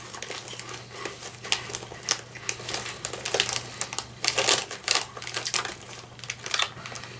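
Chester's Fries Ranch corn fry snacks being crunched in the mouth close to the microphone: a quick, irregular run of crisp crunches. The snack bag crinkles as a hand goes back into it near the end.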